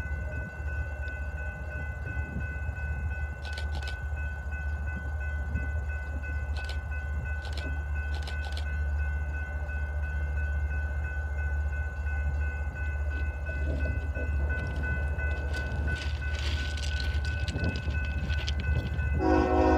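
Diesel locomotive approaching from a distance, its low rumble slowly growing louder, with a steady high whine throughout and a few faint clicks. A short horn blast sounds about a second before the end.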